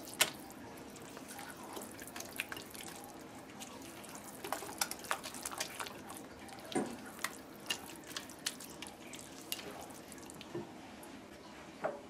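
Silicone spatula stirring a wet mixture of grated cassava and coconut in a glass bowl: faint, irregular squelching and small clicks as the spatula works the mix and scrapes the bowl.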